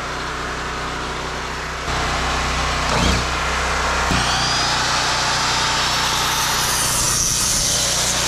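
A motor running steadily, getting louder about two seconds in, with two knocks near the middle and a growing hiss in the second half.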